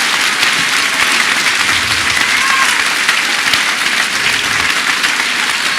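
Large audience applauding steadily, a big crowd clapping together in a hall.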